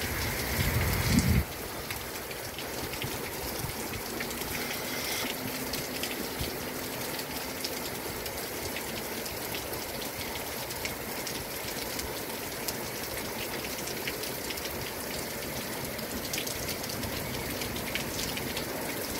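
Heavy downpour during a thunderstorm: a steady hiss of rain with the patter of many drops. A louder low rumble in the first second and a half cuts off sharply.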